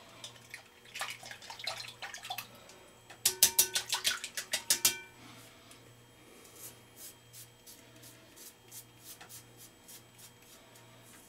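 Gillette Mach 3 three-blade cartridge razor scraping stubble in short, quick strokes, shaving against the grain. About three seconds in comes a quick run of about ten sharp knocks, each with a short ringing note; this is the loudest sound.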